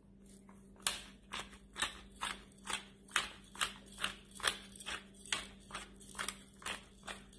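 Ground black pepper being shaken from a small shaker, a brisk rattling shake about twice a second that starts about a second in.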